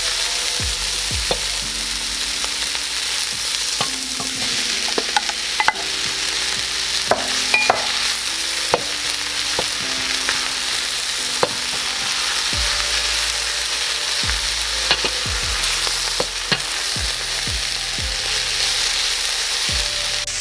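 Vegetables and potatoes sizzling as they dry-sauté in a hot pot, with a spoon stirring and knocking against the pot now and then.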